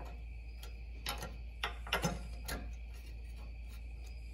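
A few light, irregular metal clicks and taps as factory captured-nut brackets are pried out with a flat-blade screwdriver and handled, over a steady low hum.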